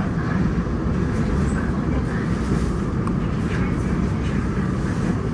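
Seoul Subway Line 1 electric train running along the track, a steady rumble.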